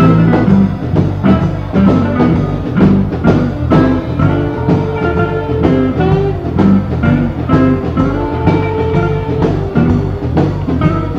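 Recorded blues band in an instrumental passage: guitar over a drum kit keeping a steady beat, with no singing.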